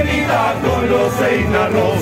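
String band of mandolins and violins playing a Puno carnival song while the men sing together, over a bass pulse about twice a second.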